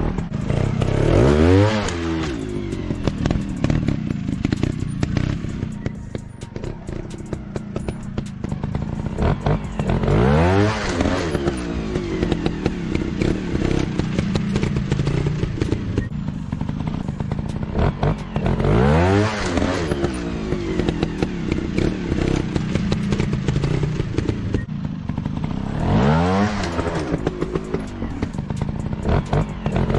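Dirt bike engines running, the revs climbing sharply and dropping back four times, about eight seconds apart, over steady lower engine noise in between.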